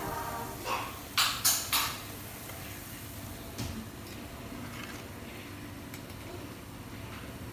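Metal spatula knocking and scraping against a wok four times about a second in, then once more later, over a low steady hiss of flour-coated peanuts frying in oil.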